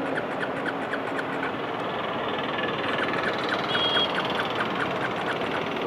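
Starter motor cranking a KTM 390 Adventure...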